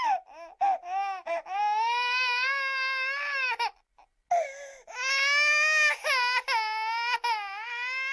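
Human baby crying: a few short cries, then long wailing cries broken by a brief pause for breath about four seconds in.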